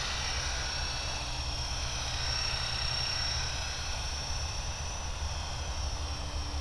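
Align T-Rex 550E electric radio-controlled helicopter in flight, giving a steady high-pitched whine from its motor and rotor, over a low rumble of wind on the microphone.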